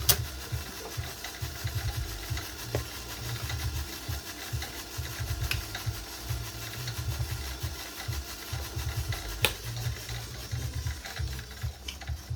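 Goodyear welt outsole stitching machine running, stitching a new leather sole to the shoe's welt with a fast, steady mechanical rhythm and a few sharp clicks.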